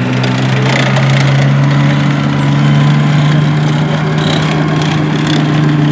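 Alvis Sabre light tank's 4.2-litre Jaguar straight-six petrol engine running steadily as the tank drives past close by. The engine note steps up slightly just after the start and then holds, with light clatter from the steel tracks.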